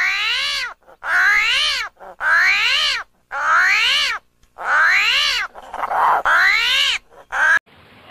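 An animal calling over and over with drawn-out, meow-like calls. There are six calls, each rising and then falling in pitch and about a second apart, and a short one near the end.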